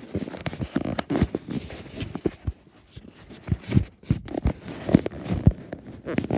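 Handling noise on a tablet's microphone: irregular knocks, bumps and fabric rubbing as the tablet is jostled and pressed against a hoodie.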